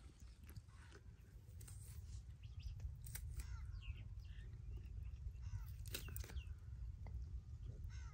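Faint bird calls, crows cawing among them, over small clicks and scrapes of a knife peeling the shells off boiled water chestnuts, with a low steady rumble beneath.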